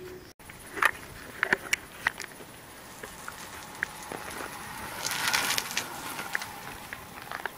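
Irregular crunching clicks and knocks of footsteps and camera handling while walking on a paved path, with a louder rustling swell about five seconds in.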